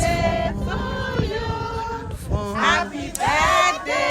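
Several voices singing together like a choir, with held notes and sliding, rising phrases.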